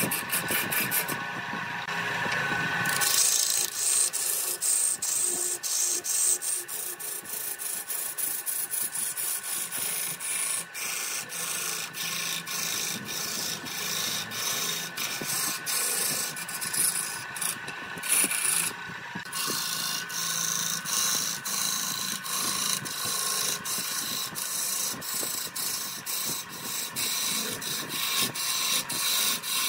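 Wood lathe spinning a large wooden cylinder while a hand-held turning gouge cuts into it: a steady scraping hiss of shavings tearing off, with sharp ticks about two or three times a second.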